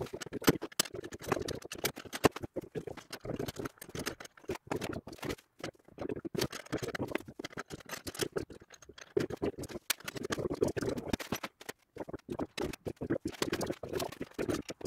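Rapid, irregular clattering and knocking of metal parts and hand tools as the tow-behind tine dethatcher is put together, with short pauses between runs of clicks.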